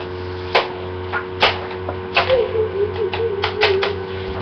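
A series of irregular sharp taps or clicks, about eight to ten, over a steady electrical hum.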